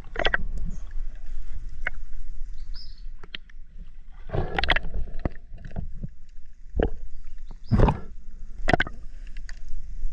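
Muffled underwater sound of a spearfishing diver in shallow water: a steady low rumble of water moving past the camera, broken by irregular knocks and bumps as he handles the spear shaft and the speared mangrove snapper, the loudest two near the end.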